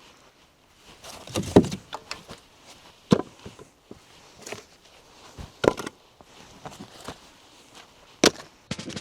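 Split firewood pieces clunking as they are unloaded and tossed onto a pile, a knock of wood on wood every second or two.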